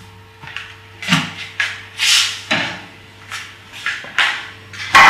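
Kitchenware being handled: a saucepan, a cup and cupboards knocked and set down in a quick series of clatters and knocks, the loudest near the end. A faint steady hum runs underneath.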